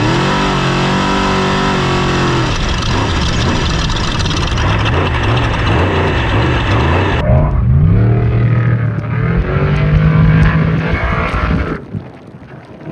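Off-road race truck engine revving, its pitch dipping and climbing with the throttle. About seven seconds in the sound changes abruptly to another run, the engine climbing in pitch and holding high before dropping away sharply near the end.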